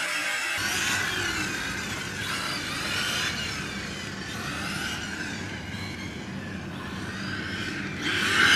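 Brushless electric motor of a 6S HOBAO Hyper VT RC car, a Hobbywing XERUN 2200kv, whining as the car is driven, its pitch rising and falling again and again as it speeds up and slows, louder near the end.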